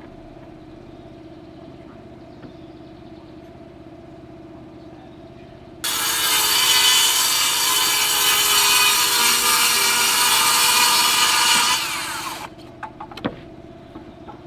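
Power circular saw cutting through a sheet of roof sheathing. It starts suddenly about six seconds in, cuts steadily for about six seconds and winds down near the end, followed by a few light knocks.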